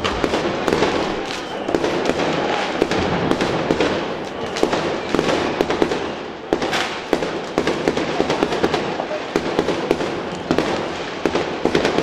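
Fireworks going off in rapid succession: a dense, unbroken run of bangs and crackles.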